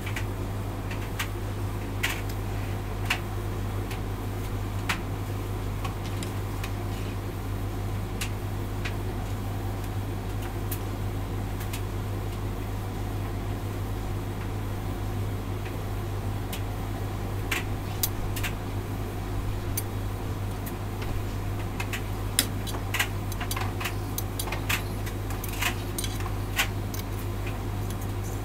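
Hotpoint tumble dryer running: a steady motor and fan hum under irregular sharp clicks and taps from the tumbling load, which includes jeans, knocking in the drum. The clicks come more often near the end.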